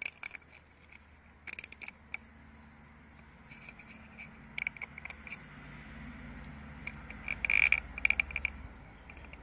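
Plastic cable tie being pulled tight through its ratchet head: several runs of quick small clicks, the loudest run about three-quarters of the way in.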